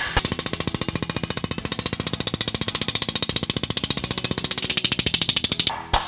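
A slap hammer strikes a sheet-metal gas-tank panel held over a post dolly in a rapid, even string of blows. The footage is sped up, so the blows come at well over ten a second. The hammering compresses the metal against the dolly to smooth out its lumps, and the run stops shortly before the end.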